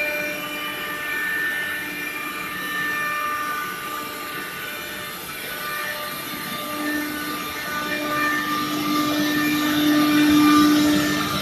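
CNC router spindle running at high speed and cutting into a wood panel: a steady high whine with several held tones over cutting noise. A lower tone swells in the second half and is loudest about ten seconds in.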